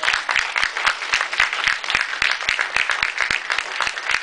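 Audience applauding, many people clapping at once in a dense, steady patter.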